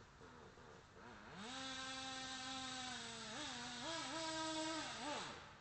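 Small radio-controlled model engine revving up about a second in, its pitch rising, then blipping up and down a few times before dropping off sharply near the end.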